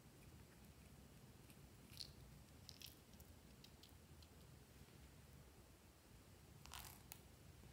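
Near silence: faint room tone with a few soft clicks from handling a small plastic toy and foam beads, and a brief scratchy rustle near the end.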